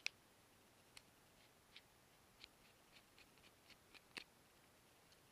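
Faint, scattered clicks and ticks of a T3 Torx precision screwdriver working screws out of a BlackBerry Z10's plastic back plate. A sharper click comes just after the start and another about four seconds in.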